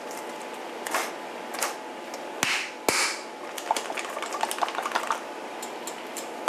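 Hand can opener being worked around a metal can of chili beans: a rapid run of small clicks and metal scraping, with two sharper knocks near the middle.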